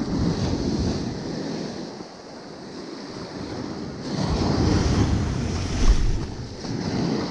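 Ocean surf washing up the beach and swirling around the legs of wading pants, with wind on the microphone. The wash swells at the start and again, louder, from about four seconds in.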